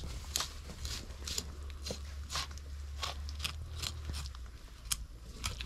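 Knife strokes crunching through a large fish as it is cleaned, a crisp scrape roughly every half second, over a steady low hum.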